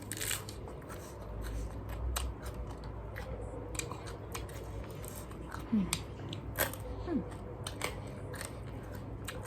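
Crunching of raw cabbage being bitten and chewed close to the microphone, a run of irregular crisp snaps. Two brief falling squeaks come past the middle.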